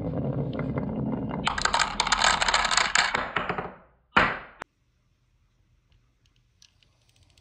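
Glass marbles rolling down a wooden slope with a steady rumble, then clicking and clacking against one another as they tumble into a toy truck's bed, most densely between about one and a half and three seconds in. A short burst of rolling and clacking comes after about four seconds, and then it is nearly silent, with only a few faint ticks.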